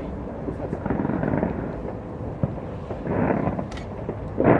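Fireworks bursting in a steady rumble of booms, with a sharp, loudest bang just before the end.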